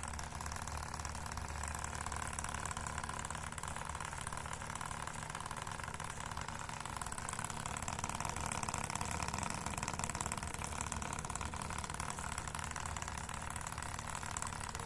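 Miniature PVC-pipe one-cylinder engine model, driven by a Tamiya DC motor, running steadily with a continuous mechanical buzz that swells slightly past the middle.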